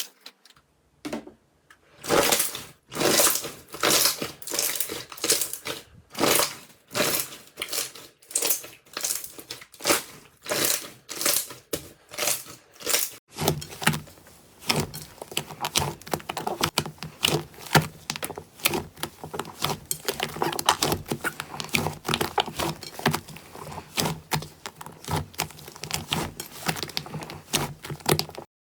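Slime being squeezed and pressed by hand, with a run of squishes about twice a second. About halfway through it changes to a denser, continuous stream of small pops and clicks.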